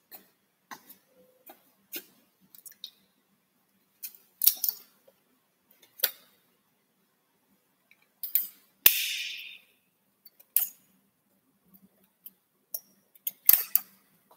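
Irregular sharp clicks and knocks, a dozen or so, some in quick clusters. The loudest, a little past the middle, is followed by a hiss that fades over about a second.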